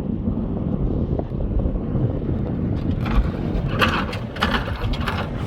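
Chevy Suburban driving on a rough trail with its fuel pump newly replaced: a steady low engine and road rumble with wind on the microphone. From about three seconds in, a run of brief clatters breaks in over the rumble.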